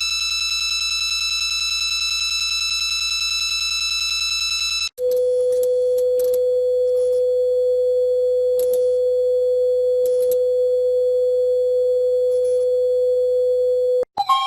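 Emergency alert tones: a steady high electronic tone with overtones for about five seconds, then an abrupt switch to a lower, purer steady tone that holds for about nine seconds and cuts off near the end.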